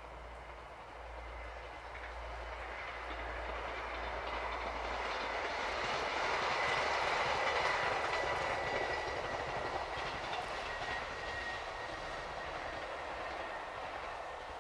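A two-car regional train passing at speed, its running noise growing louder, peaking about halfway through and fading as it moves away, with a thin high whine while it is closest.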